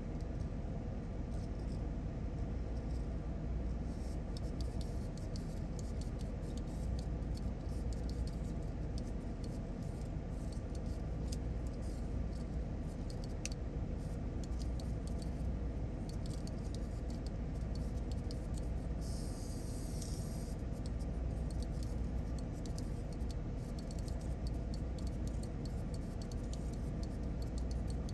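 Small clicks and rattles of plastic toy parts and tools being handled while a wind-up toy's clockwork gearbox is repaired, over a steady low hum. A brief hiss comes about two-thirds of the way through.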